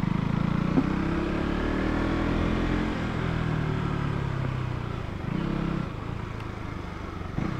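KTM Duke 200's single-cylinder engine running as the bike rolls along, its note falling gradually as it slows. A brief rise in revs comes a little after five seconds, then it settles to a lower, steady note.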